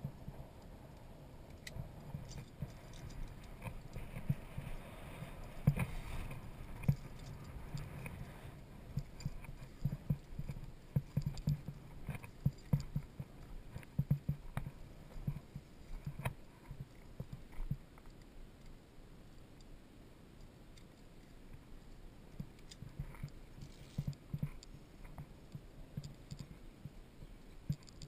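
Footsteps crunching and thudding irregularly on a loose, rocky path, with small metallic clinks of via ferrata gear. The steps thin out for a few seconds past the middle, then pick up again.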